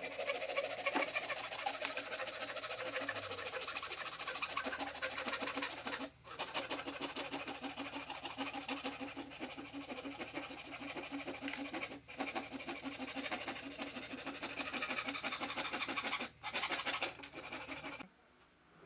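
A woodworking tool working on wood: a fast, even scraping rattle over a faint steady hum. It breaks off briefly about six, twelve and sixteen seconds in and stops shortly before the end.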